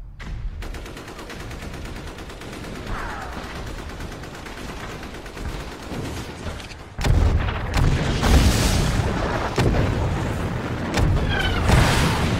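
Battlefield gunfire and explosions: a steady crackle of shots, then much louder and heavier booming from about seven seconds in.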